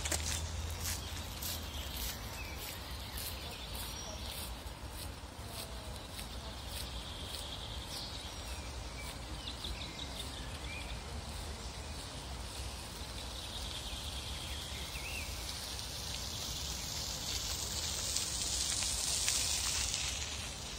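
Park ambience: small birds chirping and calling over a steady low rumble, with a high hiss that swells near the end.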